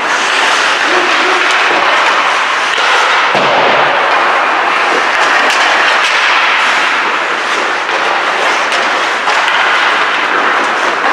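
Steady rushing noise of ice hockey play in a rink, with scattered clicks of sticks and puck and skates scraping the ice as players crowd the net. A faint shout about a second in.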